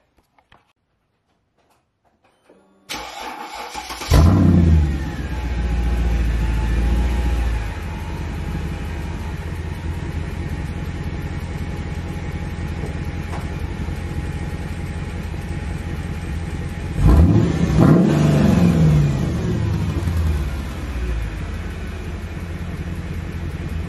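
Mercedes ML55 AMG's 5.4-litre V8 is cranked by the starter for about a second and catches with a loud flare, then idles with a low, heavy note through an open exhaust with the mufflers removed and bypassed. About two-thirds of the way in it is revved up and settles back to idle.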